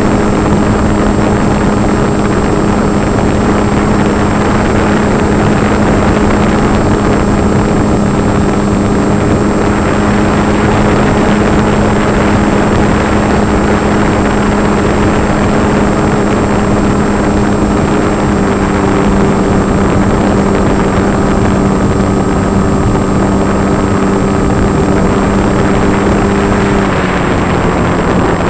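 Electric motor and propeller of a small foam RC plane in flight, heard from an onboard camera: a steady hum over a broad rushing noise, falling slightly in pitch near the end.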